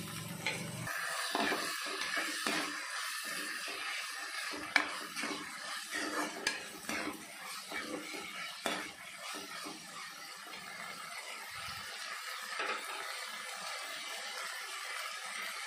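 Green cowpeas with onion and tomato sizzling in oil in a nonstick kadai while a metal slotted spatula stirs them, scraping and clinking against the pan. One sharp clink a little under five seconds in.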